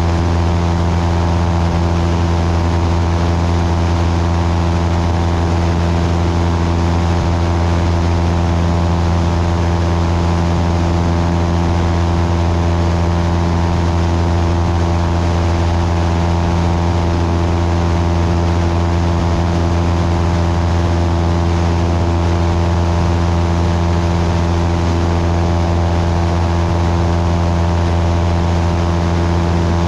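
Cessna 172's piston engine and propeller running in flight, a steady, unchanging drone heard from a camera mounted on the wing, with the rush of wind behind it.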